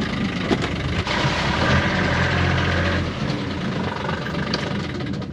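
Kioti's engine running just after starting, idling with a steady low note. The engine note rises and strengthens from about one second in and eases back near three seconds.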